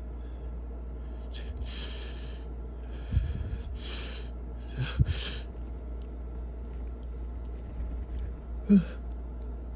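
A person sniffling hard through an itchy nose: a run of short, sharp sniffs with muffled, stifled sneezes held back in the throat and nose. The loudest is a short, squeaky stifled sneeze near the end.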